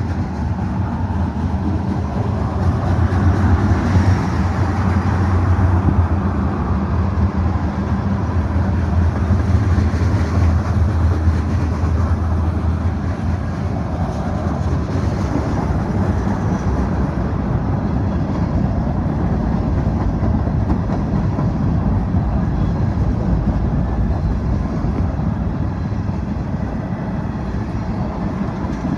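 A long mixed freight train's cars rolling past, steel wheels running on the rails with a steady rumble.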